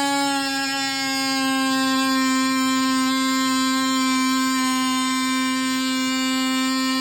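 DeWalt oscillating multi-tool running at a steady high speed: a loud, even buzz that holds one pitch.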